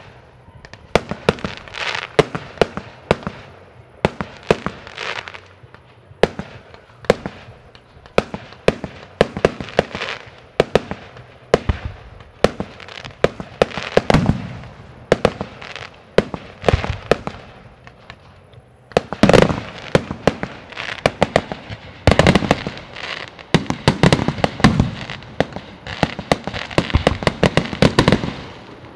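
Aerial fireworks going off: an irregular run of sharp bangs and crackles from shells bursting, growing denser and louder about two-thirds of the way through.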